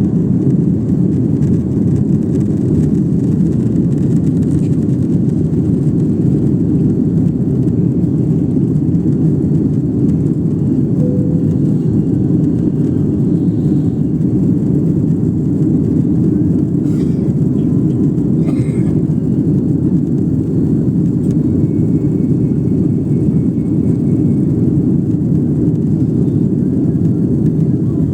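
Jet airliner cabin noise heard from inside the cabin: a steady, low rush of engines and airflow shortly after takeoff.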